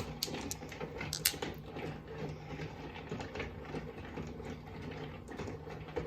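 Freshly polished tumbled stones clicking and clacking against each other as they are sorted by hand, with a cluster of sharp clicks in the first second and a half and scattered ones after. A steady low hum runs underneath.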